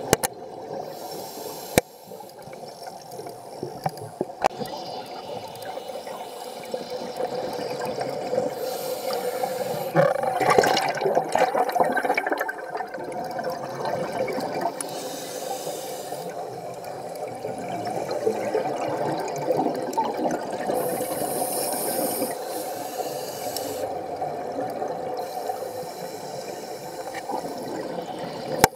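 Scuba breathing heard underwater: regulator hiss and exhaled bubbles gurgling in surges every few seconds, over a steady hum. A few sharp clicks near the start.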